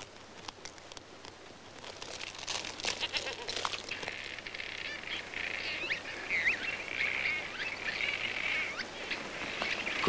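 A flock of cliff swallows calling: a busy chatter of short chirps and squeaky twitters that builds up about two seconds in and carries on thickly.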